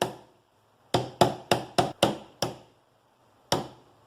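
Sharp taps knocking the shaft lock into place on an electric fan's motor shaft: one tap, then a quick run of about six taps, then a single tap near the end.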